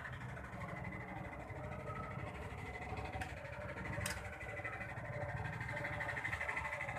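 Steady low background rumble, with a single sharp click about four seconds in.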